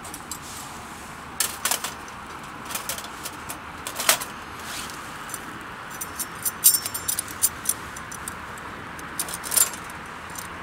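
Metal camping gear being handled: scattered sharp clinks and clatters, several with a brief metallic ring.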